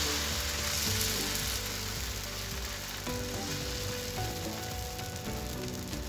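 Egg-and-flour batter sizzling steadily in a hot, lightly oiled pan over a gas flame as it is spread thin with the back of a large spoon. The sizzle eases slightly toward the end.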